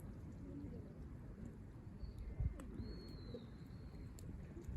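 Birds calling: a dove cooing low, with a thin, slightly wavering high whistle from another bird about two to four seconds in, and a few faint sharp clicks over a low background rumble.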